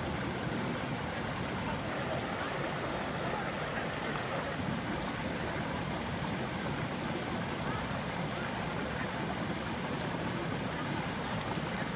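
Water rushing and splashing steadily over a small weir into a stone-lined stream channel.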